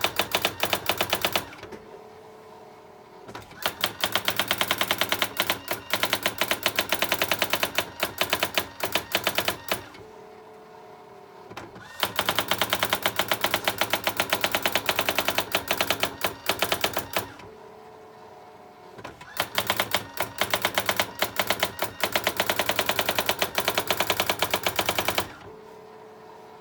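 Brother AX-350 electronic daisy-wheel typewriter printing in long runs of rapid, even strikes. Short pauses between the runs leave its steady motor hum.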